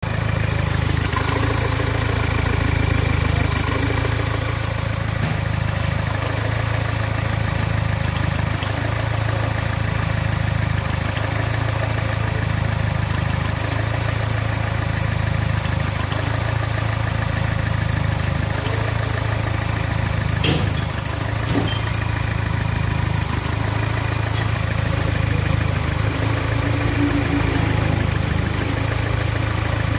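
Opel Zafira 1.6 CDTi diesel engine idling steadily with its diesel particulate filter clogged with soot, the lambda probe removed so that exhaust escapes through the open probe port. A single sharp click about two-thirds of the way through.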